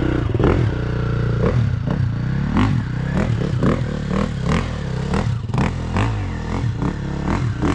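Four-stroke Husqvarna enduro dirt bikes running close by, engines idling with sharp clattering ticks, and an engine revving up and down now and then.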